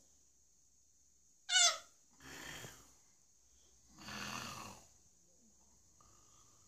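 An old man snoring heavily, with rasping, buzzing snore breaths about every two seconds. A short, loud sound with a falling, wavering pitch comes about one and a half seconds in.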